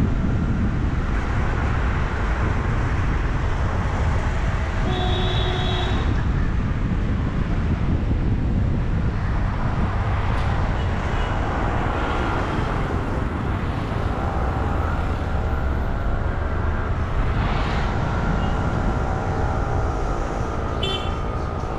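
Road and traffic noise from a car driving slowly through busy city streets: a steady low rumble with tyre hiss. A short horn-like tone sounds about five seconds in, and fainter tones come and go later.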